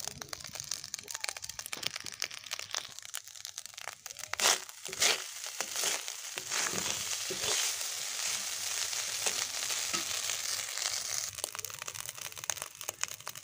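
Leftover cooked rice stir-frying in a metal kadai: a steady sizzle, with the scrape and clicks of a metal spatula turning the rice against the pan. Two louder scrapes come about four and a half and five seconds in.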